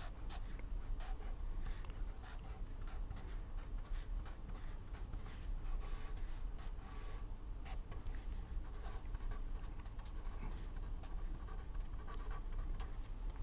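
Pen writing and sketching, a run of short irregular scratching strokes, over a low steady hum.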